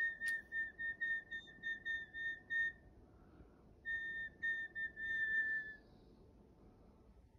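Whistling on one high, steady pitch: a quick run of about ten short notes, then, after a pause of about a second, a shorter phrase that ends in a longer held note.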